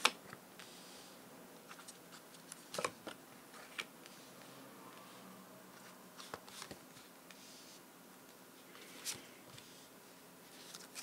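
Quiet room tone with a few faint, scattered clicks and soft taps, the loudest about three seconds in and again near nine seconds.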